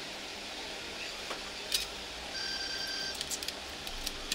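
A steady electronic beep lasting under a second, about halfway through, over quiet room noise with a few faint clicks.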